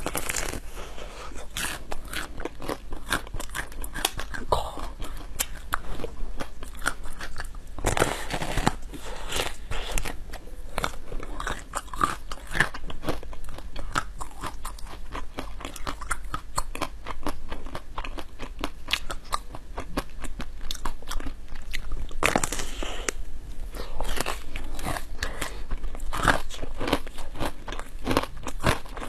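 A person biting into and chewing a large round food with a thin white shell and a crystalline-looking inside: a dense run of crisp crunches and cracks with chewing, with louder clusters of crunching twice.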